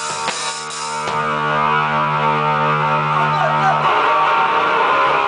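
Metal band music from a rehearsal: a guitar holds a ringing chord, then a denser, noisier wash of sound builds in from about four seconds in.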